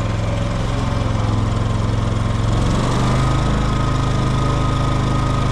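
Predator inverter generator running on natural gas with a steady hum; about three seconds in, its engine speed steps up slightly.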